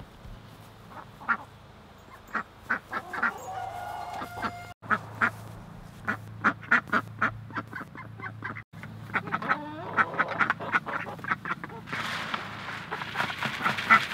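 Khaki Campbell ducks quacking in quick runs of short calls, growing busier and louder in the last couple of seconds.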